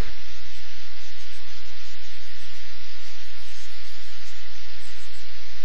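Loud, steady electrical hum with static hiss, unchanging throughout.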